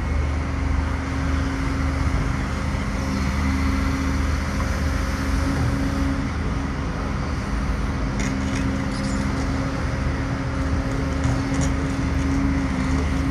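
Steady road traffic noise, with cars and engines running and a constant low hum.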